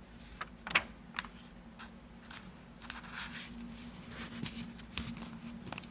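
Paper handling as a picture book's page is turned: soft rustles and a few light clicks over a faint steady hum.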